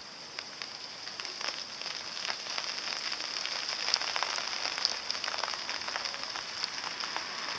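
Light rain falling, with many irregular drop ticks close by over a steady high-pitched hiss; the ticks grow a little busier after about two seconds.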